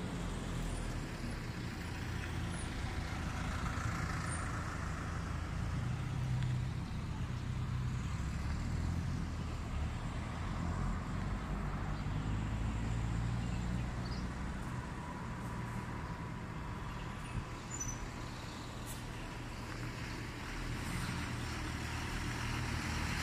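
Motor vehicle engines running steadily at low revs, with a constant low hum and light road-traffic noise.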